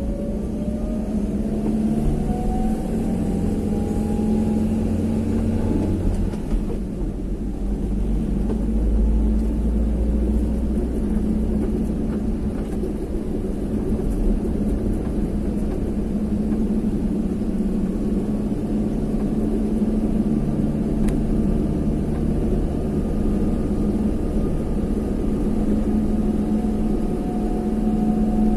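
Engine and road noise of a vehicle being driven, heard from on board as a steady low drone. The engine pitch rises as it accelerates over the first few seconds, then settles.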